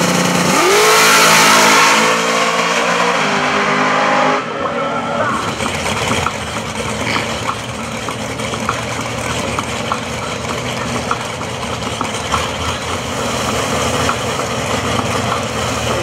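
Fox-body Ford Mustang drag car's V8 revving up hard off the line, pitch climbing and stepping up through several gear changes over about four seconds. It cuts off abruptly and gives way to a steady engine idle under crowd chatter.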